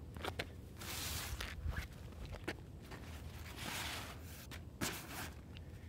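Nylon parachute canopy and stuff sack rustling as they are handled, in two longer swishes, with a few light taps or clicks between them.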